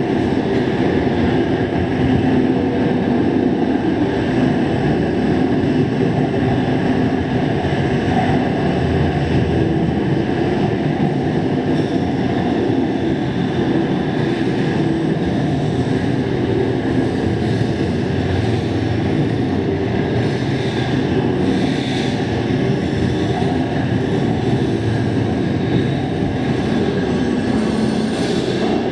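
Loud, steady rumbling noise, heaviest in the low range, like a passing train, with no beat or clear tone.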